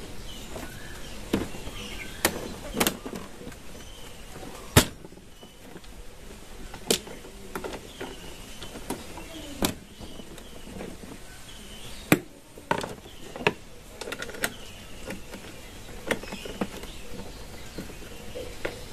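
Sharp metallic clinks and knocks of a socket tool working the carrier's mounting bolts inside a scooter's under-seat compartment, about a dozen at uneven intervals.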